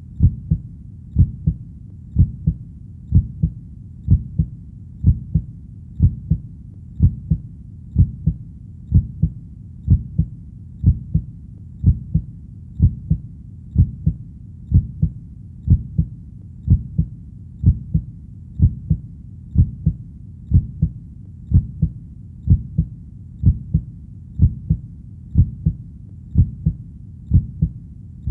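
Human heartbeat, a steady low lub-dub double thump about once a second, over a faint low rumble between beats.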